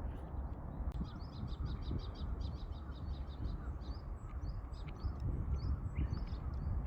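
Small birds calling outdoors: a quick run of short, high chirps about a second in, followed by scattered chirps, over a steady low rumble.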